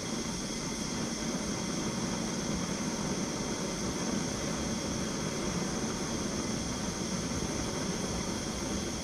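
Cordless heat gun running steadily, its fan blowing with a low hum under an even hiss, while it heats a soldering slug in a battery cable lug to melt it.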